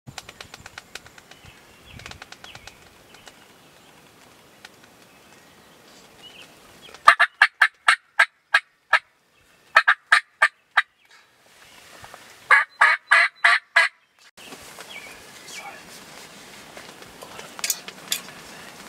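Wild turkey calling: three loud runs of rapid, evenly spaced notes, a few seconds apart.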